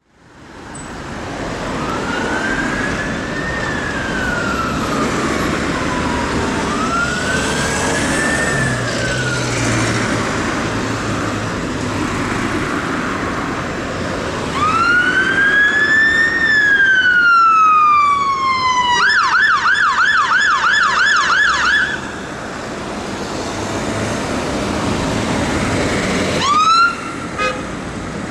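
Fire engine's electronic siren approaching through traffic: two fainter slow wails, rising and falling, then a louder wail that switches to a fast yelp for a few seconds, and a short whoop near the end. Steady road traffic noise lies underneath.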